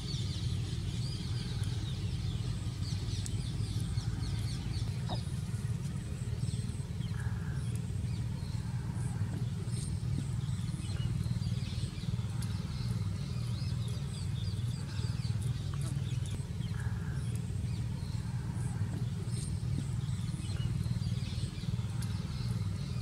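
Background ambience: small birds chirping over a steady low hum.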